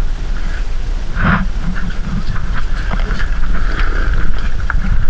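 Steady low rumble of the dive boat's engine running, with scattered knocks and clinks of scuba gear handled on the metal deck and one louder knock about a second in.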